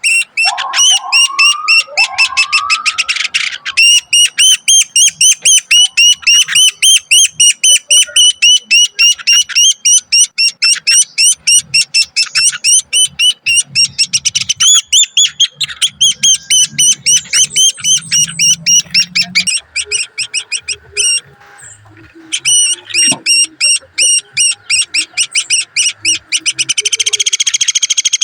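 Woodpecker nestlings begging in the nest as they are fed: a fast, unbroken run of high, repeated chirps, several a second. It breaks off briefly about two-thirds of the way through and quickens into a buzzing run near the end.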